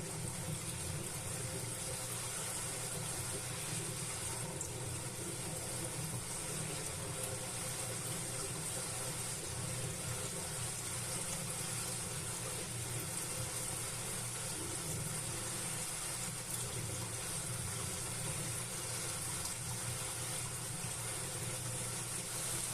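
Steady rain falling, an even hiss with no breaks and no thunder clap.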